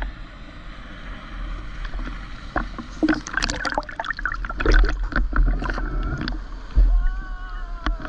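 Seawater slapping and gurgling against a GoPro Hero 9 in its waterproof housing held at the surface, with a busy run of splashes in the middle and a low rumble underneath.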